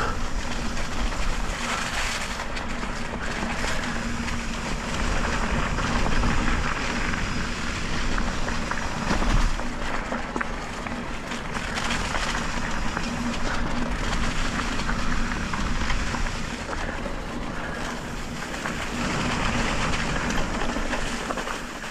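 Electric mountain bike riding a dirt trail covered in leaves: tyres rolling over dirt and leaves, with a steady rush of wind and trail noise and a faint steady low hum throughout.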